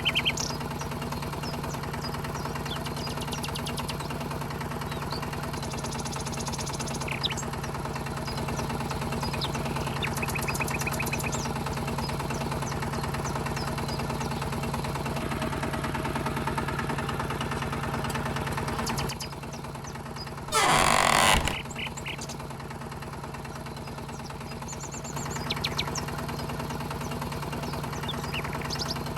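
Small motor of a DIY mini tractor running with a steady hum. It cuts out about two-thirds of the way through, a short loud sweeping burst follows, and the motor starts again a few seconds later.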